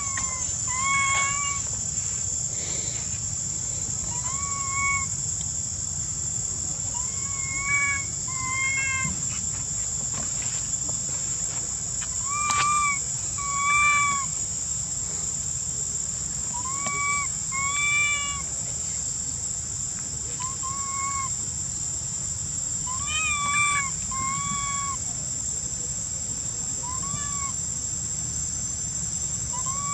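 Baby long-tailed macaque giving short, plaintive coo calls that rise and fall, about a dozen times, often two in quick succession: an infant's lost call for its mother. A steady high insect drone runs underneath.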